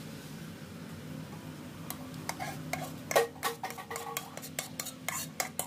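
A metal spoon scraping thick kaya custard out of a steel pot into a ceramic bowl: a run of clinks and scrapes on the pot starting about two seconds in, with one louder clank just after three seconds that rings briefly. A faint steady hum underneath.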